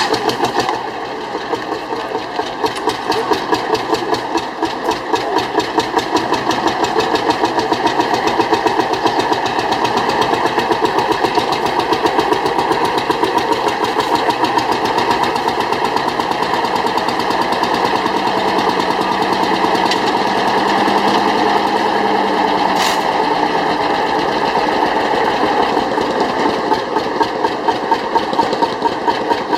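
Vintage tractor engine running steadily with a fast, even beat.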